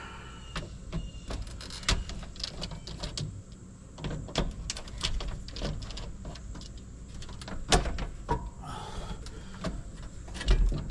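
Irregular clicks, taps and rattles of hand work on electrical wiring at a breaker panel, with a louder knock or two, one near the end.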